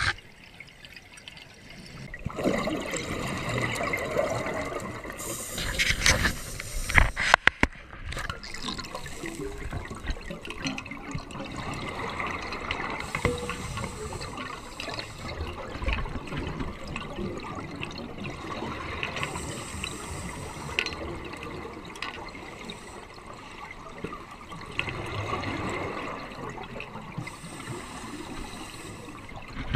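Scuba divers' exhaled bubbles rushing and gurgling underwater in bursts every several seconds, with a few sharp knocks about six to eight seconds in.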